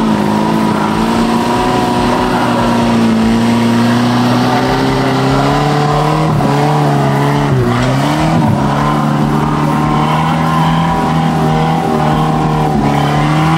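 Off-road 4x4's engine held at high revs under heavy load as the vehicle climbs out of a steep ditch. The pitch stays steady, then sags and recovers briefly about six seconds in and again around eight seconds as the engine bogs against the climb.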